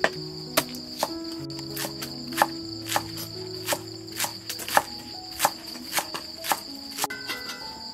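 Cleaver chopping green onions on a wooden cutting board, a sharp knock a little under twice a second, over crickets chirping steadily and soft background music.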